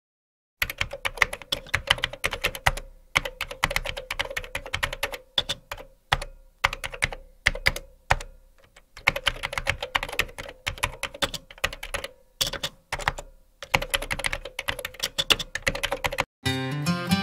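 Rapid keyboard-typing clicks in runs broken by short pauses, a typing sound effect laid under text being typed onto the screen. Acoustic guitar music comes in near the end.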